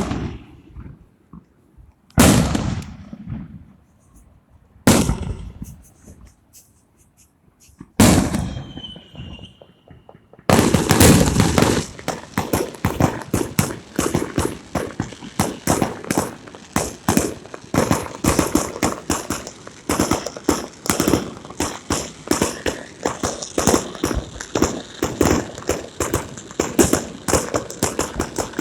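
Firecrackers: four loud single bangs a few seconds apart, each echoing away, then from about ten seconds in a long, dense crackle of rapid irregular pops, like a string of firecrackers going off.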